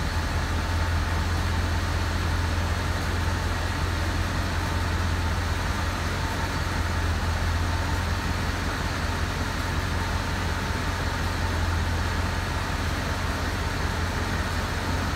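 Mercedes-Benz engine idling steadily with a low, even hum. It is running so the repaired hydraulic suspension can build pressure and raise the car.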